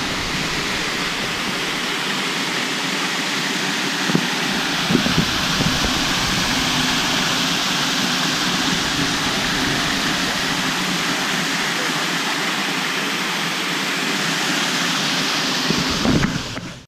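Water pouring over a wooden overshot waterwheel and splashing into the millrace below: a steady rush of falling water that cuts off suddenly at the end. The wheel, which the visitors take to be locked up, is not turning.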